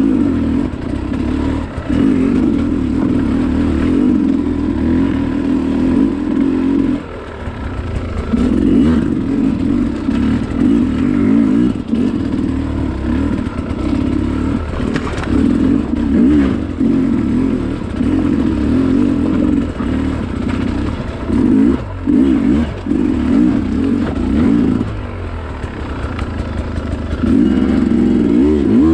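Dirt bike engine on a trail ride, throttle opened and closed again and again, the pitch rising and falling; it drops to a low burble about seven seconds in and again near the end before pulling hard once more. A few knocks from the bike over rough ground come through.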